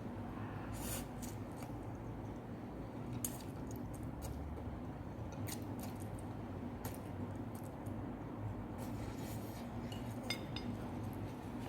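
Eating sounds: scattered light clicks and clinks of utensils against a bowl, a dozen or so irregular taps, over a steady low hum.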